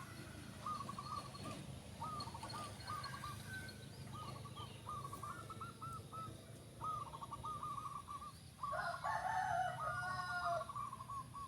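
Zebra doves cooing in short repeated phrases of quick, clipped notes, one phrase after another. Near the end a louder, fuller call of about two seconds rises over them.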